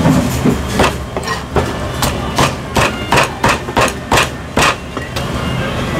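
Cleaver chopping roast goose on a thick wooden chopping block: a quick run of sharp chops, about three to four a second, stopping about five seconds in. A steady low hum runs beneath.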